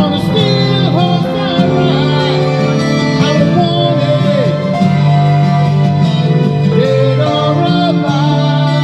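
Music: a song with singing over instruments, steady and loud.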